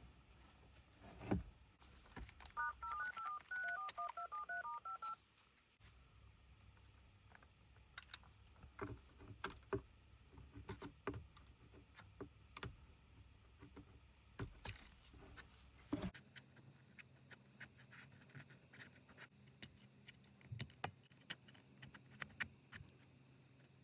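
Touch-tone keypad beeps from a phone: a quick run of about a dozen dual-tone dialing beeps. After it come scattered small clicks and taps.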